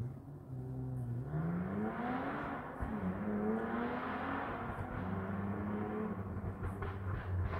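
Car engine accelerating hard, its pitch climbing, dropping sharply at a gear change about three seconds in, then climbing again and holding, with tyre and engine noise swelling as the car draws closer.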